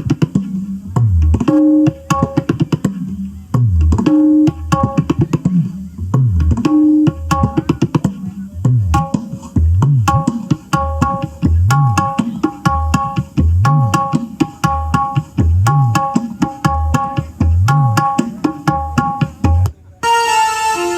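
Recorded music played loud through a large PA sound system under test: deep bass notes that bend up and down about every two seconds under a repeating plucked melody, with a brief drop near the end.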